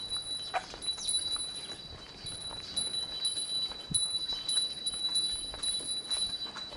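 Small metal bell jingling in a steady walking rhythm, about two strikes a second, its high tone ringing on between strikes.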